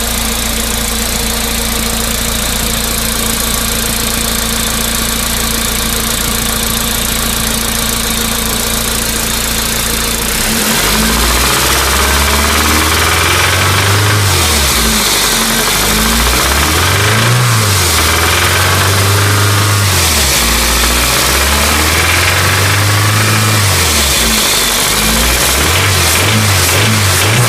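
Car engine idling steadily, then revved up and down several times from about ten seconds in, with quicker blips near the end. It has a knock that the owner cannot place.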